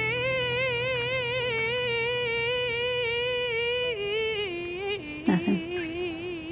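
A singer holding one long note with an even vibrato for about four seconds, then sliding down to a lower held note, over a soft sustained low chord.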